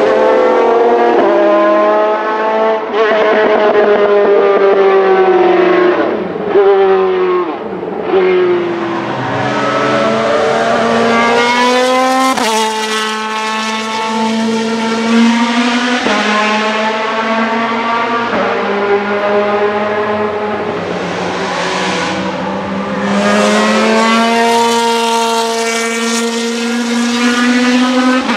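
Ferrari F430 GT2/GTC race car's 4-litre V8 at racing speed. Its pitch climbs through the gears with a sudden drop at each sequential upshift, about 12 and 16 seconds in, and falls in broken steps through downshifts early on.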